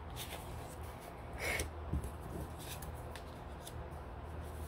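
Paper cards and card stock rustling and sliding as they are picked up and laid on a table, a few soft, brief rustles with the clearest about one and a half seconds in.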